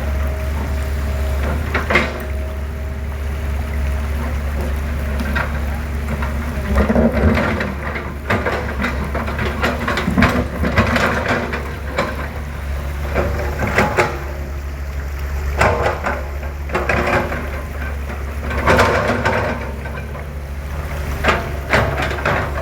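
Excavator's diesel engine running with a steady low drone, with irregular metal knocks and scraping as the machine works caked mud off a rock roller.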